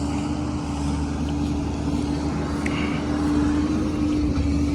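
An engine running steadily at a constant speed: a low, even drone with a steady hum.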